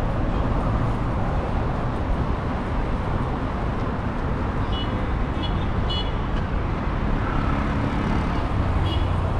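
Steady roar of busy city road traffic, cars passing on a multi-lane road, with a few short high-pitched beeps about five to six seconds in and again near the end.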